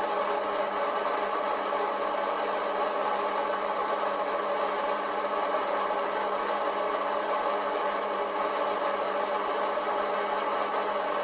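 Steady, unbroken hiss of static from the speaker of a homemade ghost-box device with an analogue meter, run as a noise channel for spirit voices.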